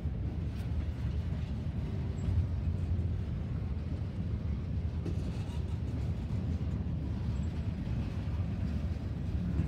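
Norfolk Southern freight train's tank cars and boxcars rolling past on the rails: a steady low rumble of steel wheels on track.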